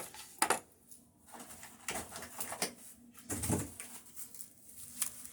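Decorations and their packaging being handled: several sharp knocks and clicks as items are set down, with rustling in between and a short low sound about three and a half seconds in.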